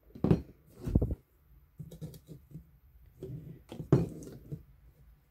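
Plastic bottles being picked up and laid down on a tabletop: a few dull knocks, the loudest about four seconds in, with lighter taps and rattles between.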